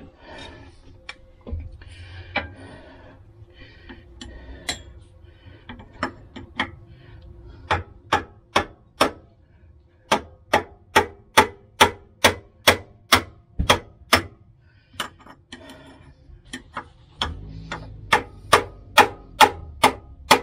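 Hand tool tapping on a screwdriver wedged against a seized bump-stop bolt, sharp light knocks about two to three a second in several runs with short pauses. The blows are meant to drive the wedge in and start the rusted bolt turning.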